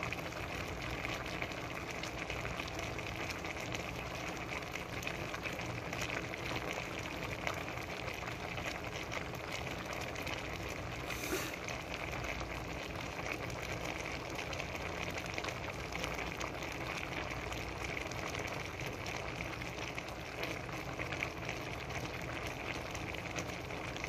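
Red bean and vegetable stew boiling in an aluminium pot with fried tilapia on top, a steady bubbling hiss. One small click about halfway through.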